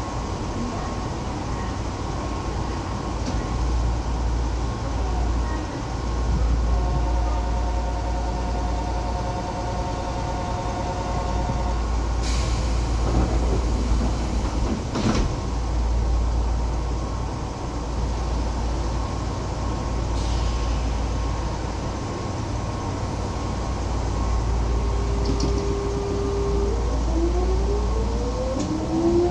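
Inside a stopped electric commuter train car, with a steady low hum from its equipment. A pulsing door-warning chime sounds for about five seconds, then the sliding doors run shut and close with a knock. Near the end a rising whine sets in as the traction motors start and the train pulls away.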